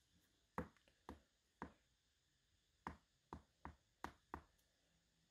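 About eight faint, short taps and clicks as fingers touch and count a stack of sealed Pokémon booster packs and loose cards on a play mat.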